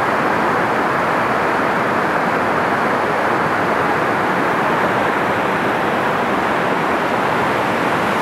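Whitewater river rapid rushing loudly and steadily as it pours over rock ledges.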